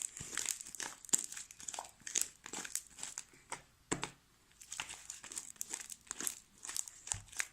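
Homemade fluffy slime (glue, shaving cream and Tide activator) being kneaded and pulled by hand, giving irregular quick sticky crackles and pops; the slime is still sticking to the hands.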